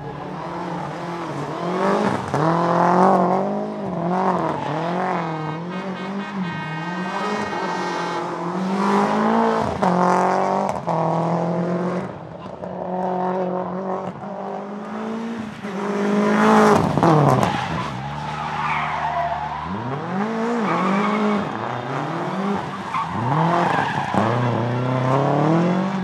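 Toyota Celica GT-4 ST165 Group A rally car's turbocharged four-cylinder engine revving hard and dropping off again and again as it accelerates, shifts and lifts through tight corners, with tyres squealing at times. It is loudest as the car passes close about 17 seconds in.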